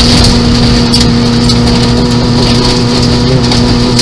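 Nissan Micra 1.0 rally car's engine, heard from inside the cabin, held at steady revs at one pitch with a slight wobble about three seconds in. Under it runs a dense rush of tyre and gravel noise with faint scattered clicks from stones.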